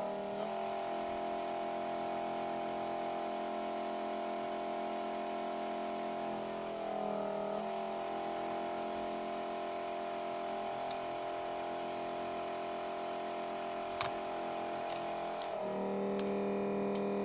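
A steady electric hum of several held tones, its pitch pattern shifting briefly twice, with a few light clicks near the end.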